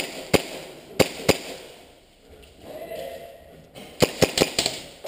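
Airsoft pistol firing sharp single shots: two close together, then two more about a second in. Near the end comes a rapid string of five or six shots.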